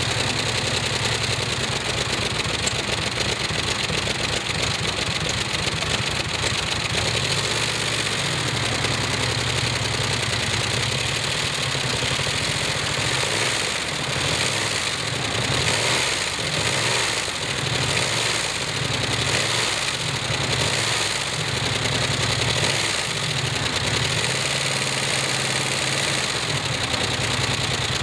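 Ford 4.6-litre single-overhead-cam V8 with a Decuir desmodromic springless valvetrain running steadily on a stand, its valve covers off and the cams and rockers exposed.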